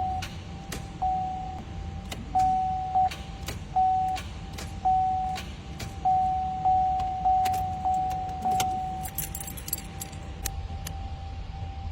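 Sharp clicks repeating over a car's steady electronic warning chime, which swells in short pulses. No engine or starter is heard turning over: the car is not cranking.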